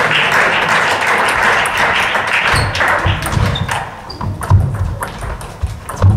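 Table tennis rally: the celluloid ball clicks repeatedly off the bats and the table, and from about halfway through the players' feet thud on the wooden sports-hall floor. For the first three seconds these sounds lie under a loud, steady rushing noise.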